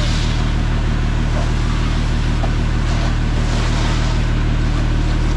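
Fire truck's engine running steadily to drive its water pump, with the hiss of a high-pressure jet from a fire hose nozzle spraying onto a pickup truck.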